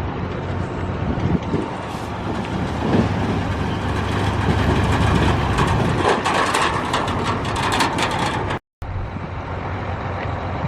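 Farm tractor engine running, with rattling and clanking over it through the middle; the sound cuts out for a moment near the end.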